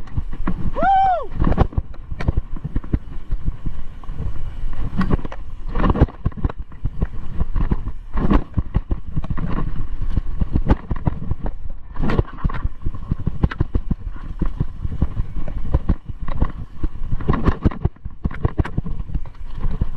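Mountain bike rolling fast down a dry dirt trail: a steady rumble of tyres on dirt with frequent irregular knocks and rattles from the bike over bumps. A brief high tone rises and falls about a second in.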